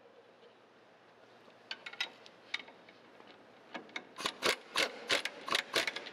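Ratchet wrench tightening the sweeper's lift link bolt: a few scattered clicks, then a quick run of about nine sharp clicks, roughly four a second, in the second half.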